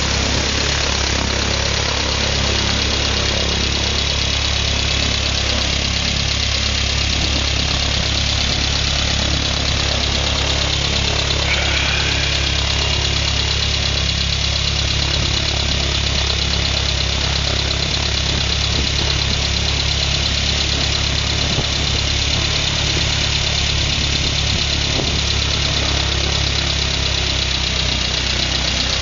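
Four-cylinder Jabiru aircraft engine running steadily at constant speed on a ground run, driving its propeller.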